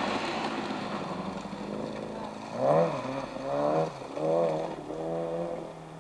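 Volkswagen Golf Mk2 rally car's engine at full throttle as it pulls away on gravel. The revs rise and drop three or four times, about once a second, with each gear change.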